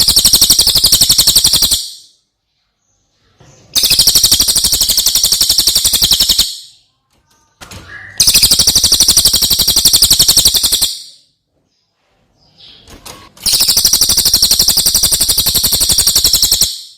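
Cililin singing in loud, fast, high-pitched trills of rapidly repeated notes, four bouts of about three seconds each separated by short pauses.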